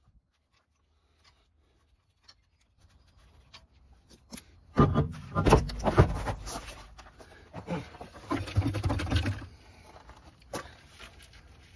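A steel wheel and tire being pulled off a car's rear drum-brake hub: after a quiet start, a run of knocks, clunks and scraping as it comes free, with a last sharp click near the end.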